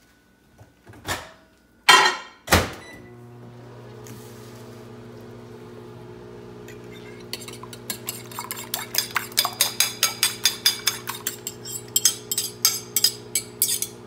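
A couple of knocks as a microwave oven is shut and started, then the microwave running with a steady hum as it melts a stick of butter. From about seven seconds in, a fork beating eggs in a ceramic bowl clinks about four times a second over the hum.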